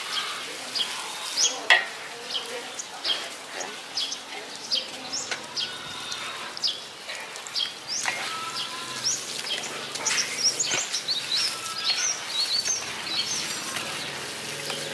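Small birds chirping over and over in short, high, falling chirps. Underneath is the soft rustle and occasional scrape of hands working grated cassava in a stainless steel bowl.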